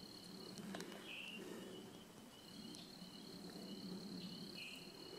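Faint, steady, high-pitched insect trilling at dusk, with a couple of short chirps about a second in and again near the end.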